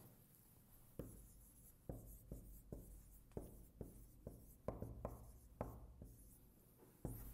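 Faint writing sounds: about a dozen light, irregular taps and short strokes of a pen, marker or chalk.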